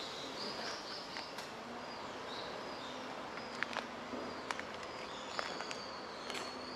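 Footsteps on pavement, sharp steps about once a second from about three and a half seconds in, over short high chirps of small birds and a steady background hiss.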